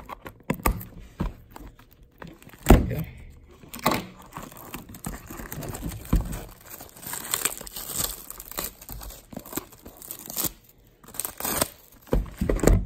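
Clear plastic shrink wrap being torn and crinkled off a cardboard trading-card hobby box: irregular rips and crackles, with one thump about three seconds in.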